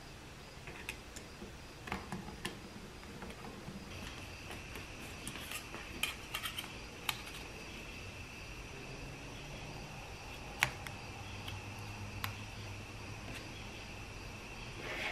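Scattered light clicks and clinks of small metal parts and hand tools being handled on a workbench, the sharpest about two-thirds of the way through. A faint steady high tone runs beneath from a few seconds in.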